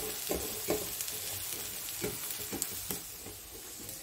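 Diced carrots and green beans sizzling in hot oil in a metal kadhai, just added to fried onions. There is a steady hiss, and a few short knocks and scrapes of metal against the pan or plate.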